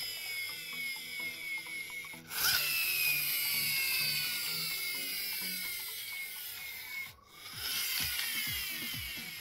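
Toy police car's friction motor whining as its flywheel spins, the high whine falling slowly in pitch as it winds down. It breaks off twice and starts again high each time. Background music plays underneath.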